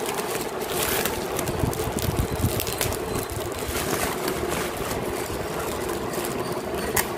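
Bubble wrap crinkling and crackling as hands pull plastic-wrapped bottles out of it, many small irregular crackles, over a steady low hum. A sharper click comes just before the end.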